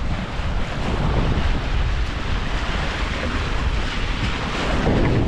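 Wind buffeting the microphone over the wash of choppy sea around a small sailboat under sail, a steady rushing noise.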